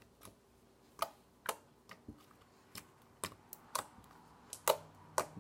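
Homemade borax slime being pressed and poked with fingertips, giving a string of sharp, irregular clicks and little pops, about one every half second.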